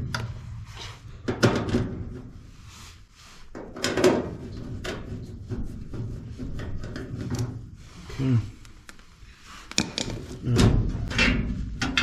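Sheet-metal access door of a Goodman gas furnace being worked loose and lifted off, with scattered clanks, knocks and scrapes of the metal panel at irregular moments.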